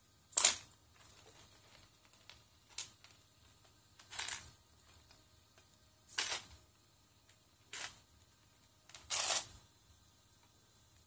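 Loose plastic Lego bricks clattering and shifting under the feet of a servo-driven legged robot as it steps across a pile of them. Short rattling bursts come every second or two, one per step, the loudest about half a second in.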